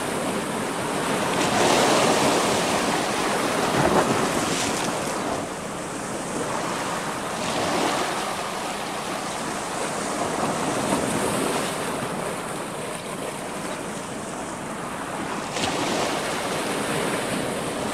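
Sea waves washing and breaking against a rocky shoreline, the surf surging louder every few seconds.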